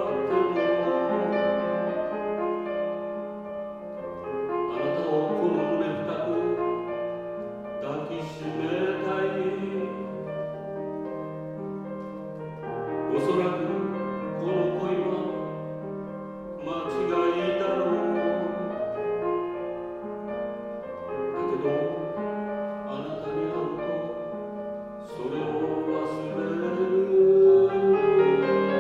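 Male voice singing in a classical, operatic style with piano accompaniment, in phrases of held notes with vibrato.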